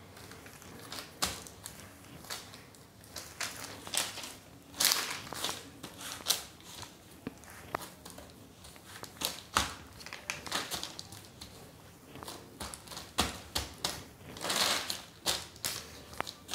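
Hands kneading and pressing a ball of cashew dough on butter paper: the paper crinkles and rustles, with irregular small clicks and taps as the dough is pushed down.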